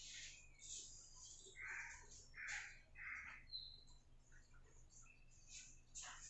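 Faint bird calls and chirps, several short high calls with a few fuller ones close together about two to three seconds in; otherwise near silence.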